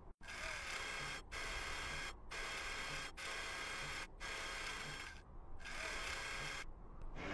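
A steady mechanical whirring hum, like small electric motors running, broken by brief gaps about once a second.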